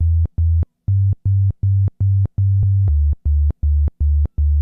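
Plain sine-wave synth bass from Logic Pro's Alchemy synthesizer playing short repeated low notes, about four a second, stepping up in pitch about a second in and back down near three seconds. Each note starts and stops with a sharp click, because the envelope is set to zero attack and zero release.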